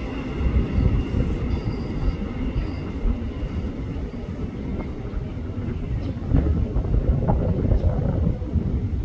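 Tokyo Metro 6000 series electric commuter train pulling away, its wheels on the rails giving a steady low rumble. A faint high whine fades out in the first couple of seconds.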